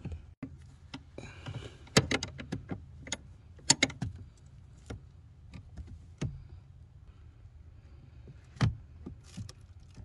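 A 14 mm wrench tightening the lock nut of a brake light switch: irregular sharp metallic clicks and taps, some in quick runs of several clicks, as the wrench is worked on the nut against the pedal bracket.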